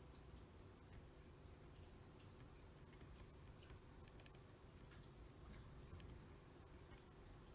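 Faint scratching of a Conway Stewart 36 fountain pen's nib on paper, in many short separate strokes as Japanese characters are written.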